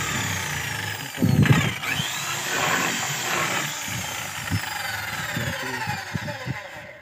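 Corded electric drill boring through a wooden plank, its whine falling steadily in pitch as the bit works into the wood. A louder bump comes about a second and a half in, and the drill winds down near the end.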